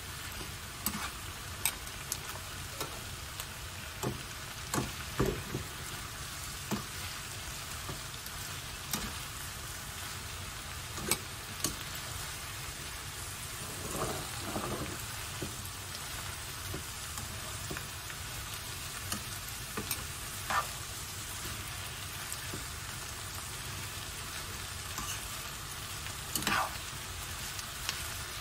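Garlic chives, onion and carrot sizzling as they are stir-fried in a frying pan, being cooked down until the chives wilt. The turning utensil clicks and knocks against the pan at irregular moments over a steady sizzle.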